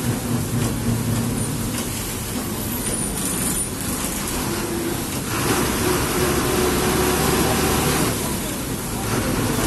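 Diesel engine of a KSRTC bus running while it drives on a wet road, under a steady hiss of tyres on water and rain. The noise grows louder about five seconds in and eases again about three seconds later.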